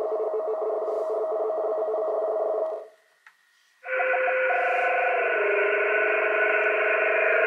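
Shortwave receiver in upper sideband playing a radioteletype (RTTY) signal: two tones warbling rapidly back and forth over band noise, first through a narrow filter. About three seconds in it cuts out for about a second, then comes back wider and hissier, and the tones shift slightly as it is tuned.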